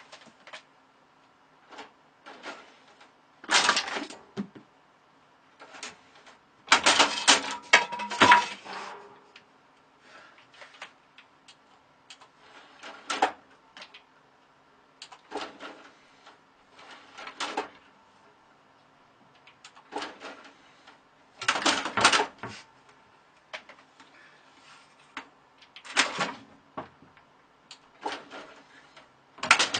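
Irregular clattering and knocking in short bursts a few seconds apart, loudest about 7 to 8 seconds in, with near quiet between the bursts.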